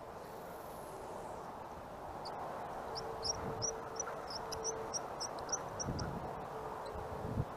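A bird calling, a run of short high chirps at about three a second that starts a couple of seconds in and stops after a few seconds, over steady outdoor background noise and a faint steady hum. A couple of soft low thumps come near the end.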